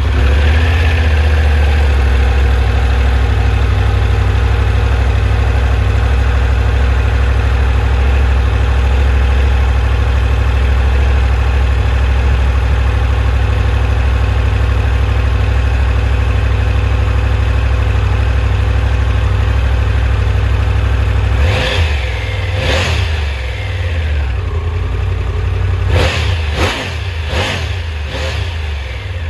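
Triumph Tiger 1200's inline three-cylinder engine on its stock exhaust, idling steadily just after starting. About two-thirds of the way through it is blipped twice, then revved in a quick burst of several blips near the end.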